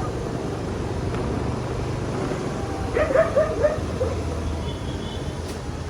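Steady rumble of street traffic, with a dog barking about five times in quick succession around three seconds in.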